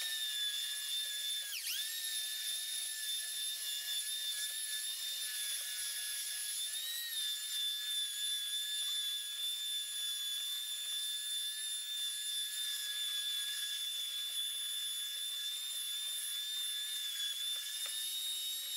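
Electric hand planer running with a steady high-pitched whine while shaving down a high spot on an old weathered board. Its pitch sags briefly under load about two seconds in.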